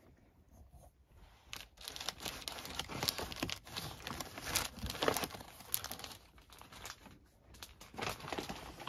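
Crinkly rustling and tearing of handled wrapping, in irregular bursts for about five seconds starting a second and a half in, dropping away briefly, then starting again near the end.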